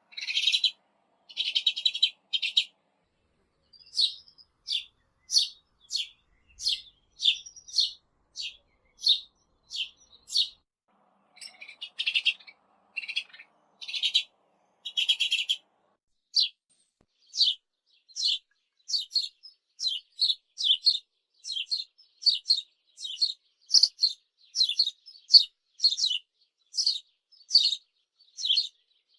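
A sparrow chirping: a long run of short, separate chirps, about one to two a second, with a few longer, buzzier notes near the start and again around the middle.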